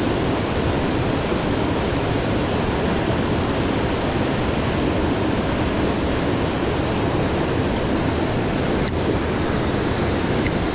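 Steady rush of a jungle creek's water tumbling over rocks, an even, unbroken hiss and roar.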